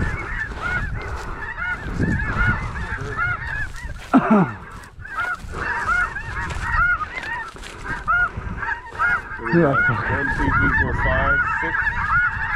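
A dense chorus of snow goose calls: short, high yelping notes overlapping without a break. There is a single loud thump about four seconds in.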